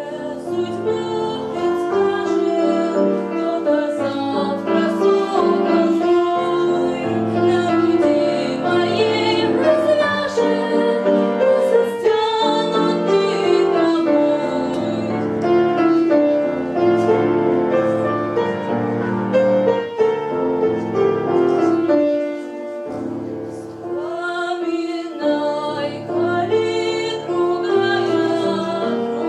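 Teenage girl singing an old Russian romance in a classical style, held notes wavering with vibrato, over piano accompaniment. The singing eases off briefly about three-quarters of the way through, then resumes.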